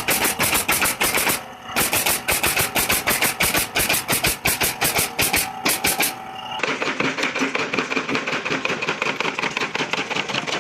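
A rapid, even run of sharp clicks or taps, about six a second, with two brief pauses. About two-thirds of the way in, the sound changes to a slightly duller but similar stream of quick taps.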